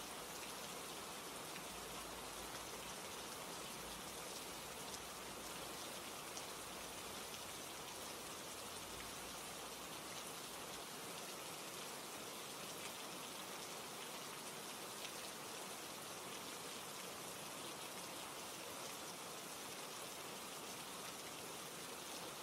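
Steady rain falling, an even hiss of raindrops with fine faint patters throughout.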